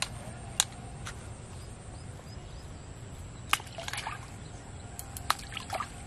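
Small splashes and drips in still canal water as bait is tossed in by hand, with a few sharp clicks scattered through.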